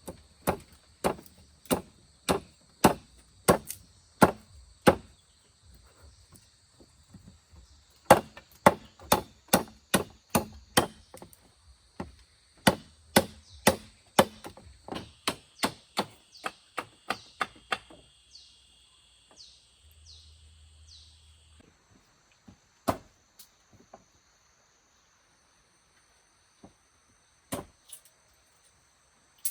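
A tool chopping into wood with sharp, regular blows. The first run comes about one and a half blows a second; after a short pause a longer, faster run comes about two a second. Near the end only a few scattered blows are heard.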